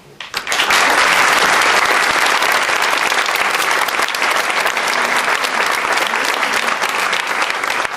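Audience applauding: many people clapping, starting just after a speaker stops and keeping up evenly.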